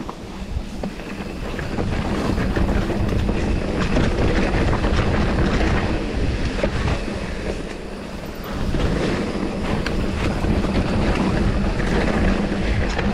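Mountain bike riding down a dirt trail, heard close up: wind rushing over the microphone, tyres rolling and the bike rattling over bumps. It gets louder about two seconds in and eases briefly around eight seconds.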